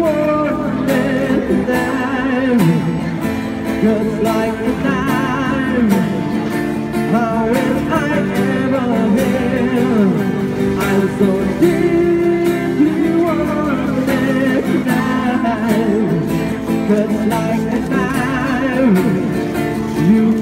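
A man singing into a microphone while strumming an acoustic guitar, busker-style, played through a small amplifier. The song runs without a break.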